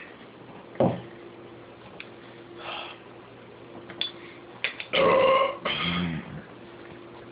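A man burping loudly, brought on by the carbonated Sprite of the challenge: one long burp about five seconds in runs straight into a second, lower, wavering burp. A sharp knock about a second in.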